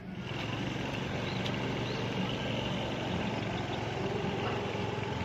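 Steady low hum of a vehicle's engine with road noise, heard from inside the moving vehicle.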